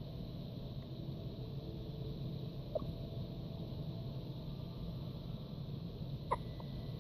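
Two small, sharp hiccups, the second louder, about three and a half seconds apart, over a steady low hum.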